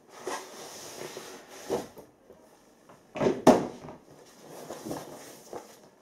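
Outer cardboard sleeve being slid off an inner cardboard box: cardboard scraping and rustling in a few pulls, the loudest a short scrape about three and a half seconds in.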